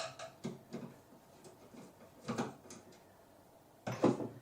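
Light knocks and clatters of an old wall sconce fixture being handled as it is taken down from its wires, the loudest knock near the end.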